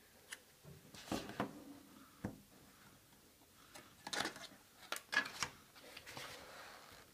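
Handling of a new smartphone's retail box and its contents: scattered clicks, taps and short rustles, in several small bursts.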